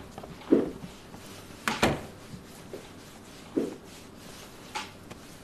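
A few soft, scattered knocks and clicks of objects being handled on a kitchen counter, about six in all, spaced irregularly a second or so apart.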